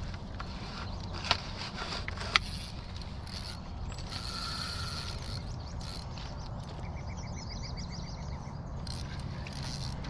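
Fishing reel being worked, its mechanism clicking, with two sharp clicks in the first few seconds and a fast run of even ticks in the last few seconds, over a steady low rumble.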